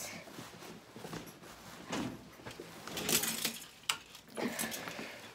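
Scattered clicks, knocks and rustling from moving about a small room and switching off the lights, with a sharp click about four seconds in.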